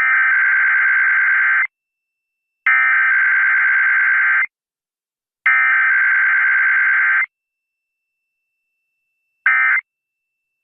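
Emergency Alert System SAME header: three loud bursts of warbling digital data tones, each nearly two seconds long and about a second apart. Near the end comes the first short end-of-message data burst.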